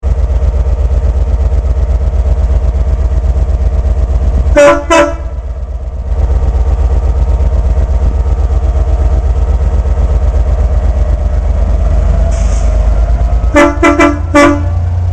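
Train horn giving short blasts, two about five seconds in and a quick run of three or four near the end, over the steady low rumble of the train running.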